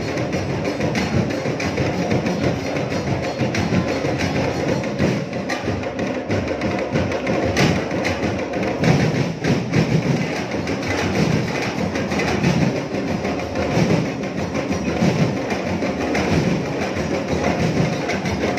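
Drum-and-percussion music playing continuously with a steady beat, sharp clacking strikes over deeper drums, accompanying a Dinagyang tribe dance.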